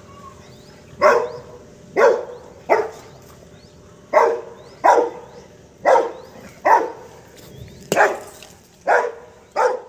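Young Rottweiler barking at a snake: about ten sharp barks, roughly one a second.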